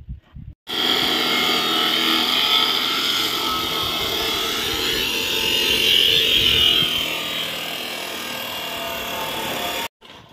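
Abrasive chop saw (metal cut-off machine) cutting through a steel channel section: a loud, steady, high grinding screech. It starts abruptly about a second in and cuts off suddenly just before the end.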